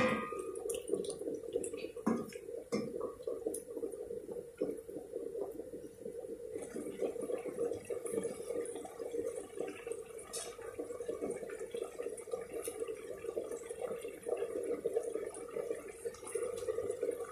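Chicken and shrimp simmering in a little water in a stainless steel pot, with a steady fine bubbling over a low hum. A wooden spatula knocks against the pot a few times in the first three seconds.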